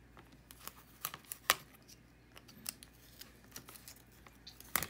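Scattered clicks and light rustling from handling a plastic Blu-ray case, with a sharp click about a second and a half in and another near the end.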